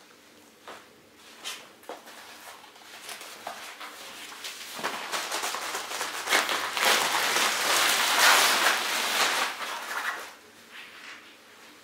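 Inflated Therm-a-Rest NeoAir XTherm air mattress rustling and crinkling as it is handled and laid down on the floor. The sound builds from about four seconds in, is loudest a few seconds later, and dies away near the end, with a few light handling clicks before it.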